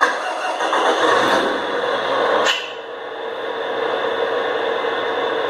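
Simulated diesel engine start-up sound from the RC bus model's Tamiya MFC-03 sound unit, played through its speaker. It comes in suddenly and loud, then about two and a half seconds in it settles to a quieter, steady idle.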